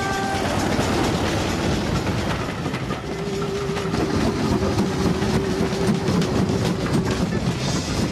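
Steam locomotive hauling a goods train, its wheels clattering over the rail joints. A steady tone is held from about three seconds in to about seven.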